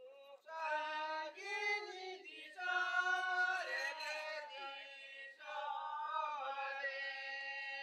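Voices singing a Baha festival song together in three long, held phrases with short breaths between them.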